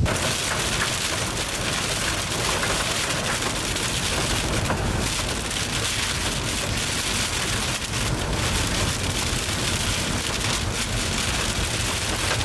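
Heavy rain falling, a steady dense hiss dotted with many small drop hits.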